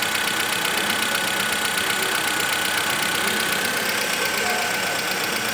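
Volkswagen Voyage 1.6 engine idling steadily, with a small tick-tick from the top of the engine. This is the normal sound of the hydraulic valve lifters once oil pressure has built up again after an oil and filter change: no fault.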